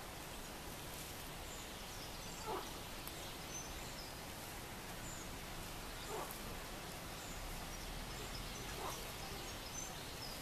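Outdoor marsh ambience: a steady background hiss with faint high bird chirps scattered throughout, and four short falling calls a few seconds apart from an animal further off.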